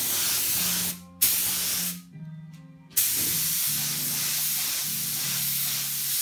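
Iwata LPH50 touch-up paint gun spraying paint at turned-down, low air pressure: a steady hiss of air that cuts off about a second in, comes back with a short burst, stops again for about a second, then resumes and runs on.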